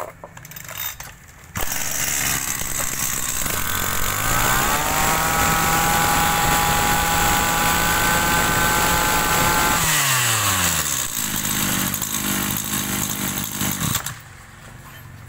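Maruyama BIG M 32 cc two-stroke brush cutter engine catches about a second and a half in and idles. It is then revved up to full throttle, held there for about five seconds, and let drop back to idle. It cuts out about a second before the end.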